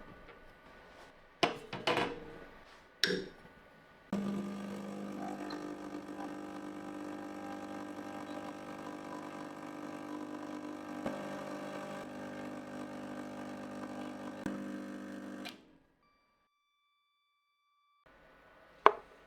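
A few handling clicks, then an espresso machine's pump starts about four seconds in and runs with a steady, even hum for some eleven seconds while the shot extracts, stopping abruptly.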